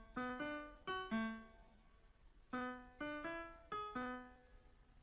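Piano melody played in single struck notes: a short phrase of about five notes, a pause of about a second, then a second similar phrase.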